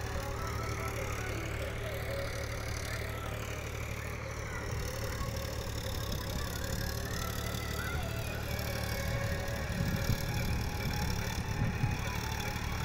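Farm tractor's diesel engine running steadily as it works through a flooded paddy field, a little louder and rougher near the end.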